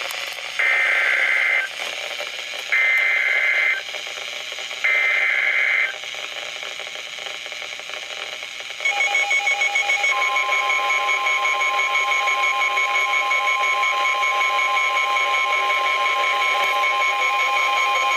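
Emergency Alert System SAME header over NOAA Weather Radio: three one-second bursts of warbling digital data tones, a second apart. About 9 s in, rapid pulsing beeps begin, and a second later the steady 1050 Hz weather radio warning alarm tone starts and holds. Together they signal an incoming severe thunderstorm warning.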